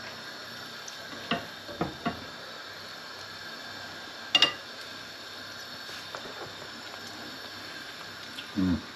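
Metal kitchen tongs clicking and tapping against a cast-iron pot as chicken thighs are laid into simmering curry sauce, over a steady low hiss. There are a few light clicks in the first two seconds and a sharper clink about four and a half seconds in.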